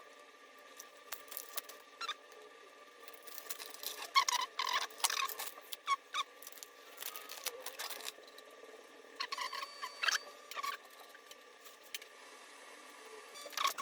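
Hand-handling of small hard parts: bursts of clicks, knocks and light rattles in two clusters, the first about four seconds in and the second about nine seconds in.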